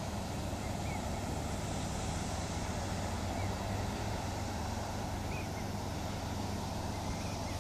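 Steady low rumble and hiss of wind on the microphone, with a few faint short chirps.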